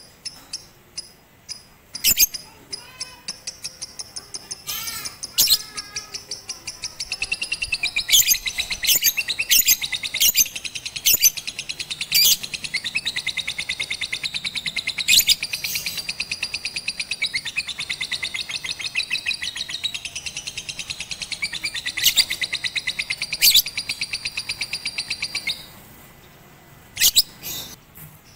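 Lovebird chirping: scattered sharp chirps at first, then from about seven seconds in a long, fast, unbroken run of high chirps with louder sharp chips over it. The run stops abruptly near the end, and a few more sharp chips follow.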